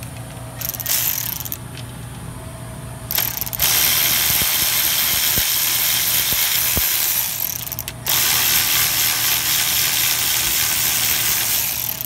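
Cordless power ratchet with a 12 mm socket on an extension, spinning out the front brake caliper bolts. It gives a short burst about a second in and another after about three seconds, then runs loudly twice, about four seconds each time.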